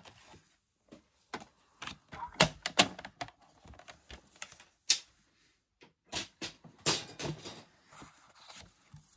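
Irregular clicks and taps as a plastic paper trimmer and cut cardstock are handled and set down on a cutting mat.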